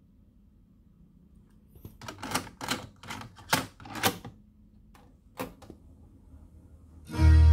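Plastic clicks and clatter of a cassette being loaded into a Victor stereo cassette deck and the cassette door shut, a cluster of sharp clicks about two to four seconds in, then a single key click about five and a half seconds in. Music starts playing from the tape at full volume just before the end.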